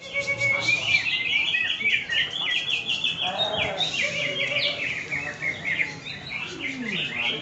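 Cucak ijo (greater green leafbird) song: a fast, unbroken stream of high chirps and trills.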